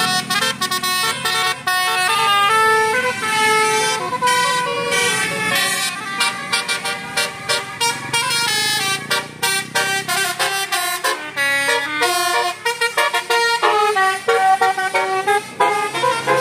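Bus 'telolet basuri' musical horn, a set of air horns switched in turn, playing a fast melody of short stepped notes.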